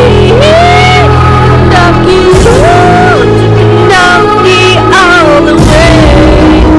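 Loud music with a singing voice whose notes glide up and down in short phrases over a steady bass and chords; the bass drops out briefly twice.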